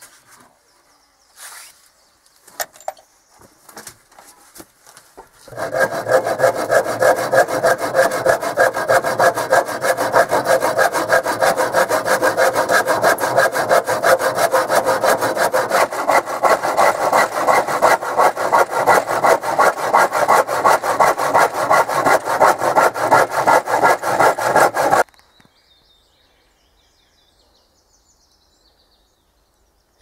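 Hand saw cutting through wooden boards with quick, even strokes for about twenty seconds, trimming the board ends of a plank tabletop flush. It stops abruptly. A few scattered knocks and clatter come before it.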